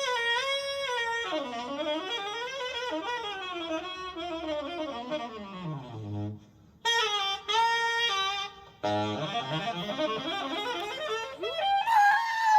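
Tenor saxophone playing an unaccompanied jazz solo, with bending, gliding notes and quick runs. It breaks off briefly about six and nine seconds in, and grows louder and rougher near the end.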